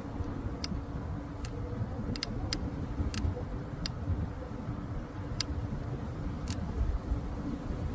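A vehicle engine running steadily: a low rumble with a constant hum, and about nine scattered sharp clicks.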